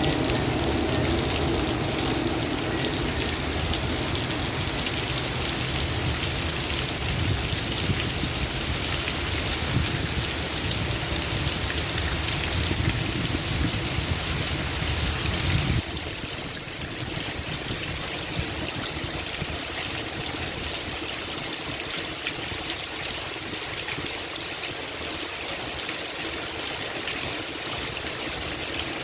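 Heavy rain falling steadily, with a low wind rumble underneath that cuts off abruptly about halfway through, leaving a lighter, steady hiss of rain.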